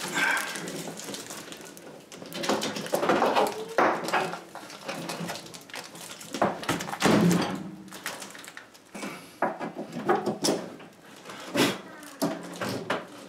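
Irregular knocks, bumps and scraping of an over-the-range microwave being pushed up against its wall mounting plate and the cabinet above by one person, with crinkling of the plastic wrap on its door. The louder thumps come about 4 and 7 seconds in.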